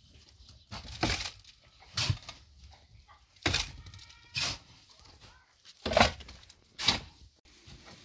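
About six sharp knocks, irregularly spaced roughly a second apart.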